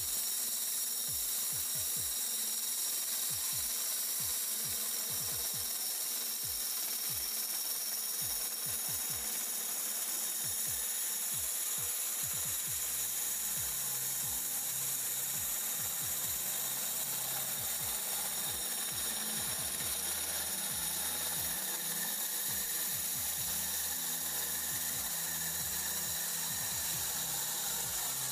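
Power drill driving an 80 mm DB1000 hole saw, grinding steadily through a Fastwall brick.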